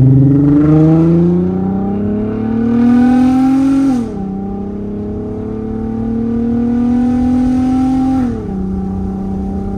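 Volkswagen R32's 3.2-litre VR6 engine pulling hard under acceleration, heard from inside the cabin. Its note climbs steadily, drops sharply at an upshift about four seconds in, climbs again more slowly and drops at a second upshift about eight seconds in, then holds steady.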